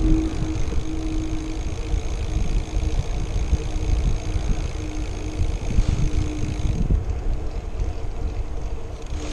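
Wind buffeting an action camera's microphone and tyre noise while a Trek Domane AL 2 road bike rolls along asphalt, with a steady hum that stops about seven seconds in.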